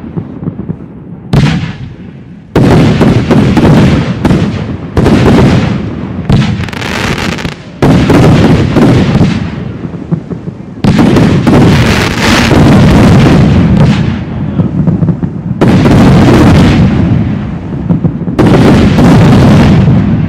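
Professional fireworks display: aerial shells and comets launching and bursting in quick succession, a string of loud bangs every second or two, each fading before the next.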